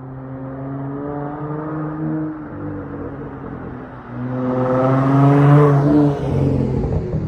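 Dodge Charger SXT's V6 running through a Flowmaster Outlaw exhaust. The engine note swells a little in the first two seconds, then grows much louder from about four seconds in and eases off again after six.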